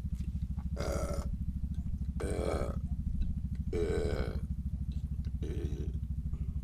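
A small engine running steadily with a rapid low throb. Over it come four short rushing noises, about a second and a half apart.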